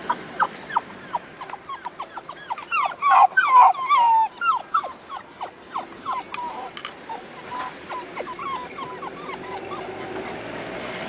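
Labrador puppy whining and yelping in a rapid run of short, high, falling cries, several a second. The cries are loudest a few seconds in and thin out toward the end.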